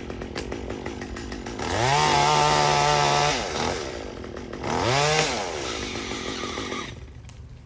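Gasoline chainsaw idling, then revved to full throttle twice: once for about a second and a half, then briefly. Each time it falls back to idle, and the sound drops away near the end.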